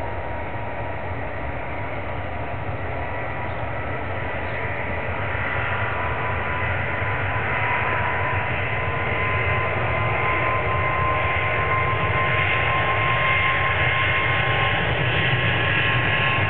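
Boeing 777-200's twin jet engines at takeoff thrust during the takeoff roll: a steady rushing noise with a high whine, growing gradually louder as the airliner speeds down the runway towards the listener.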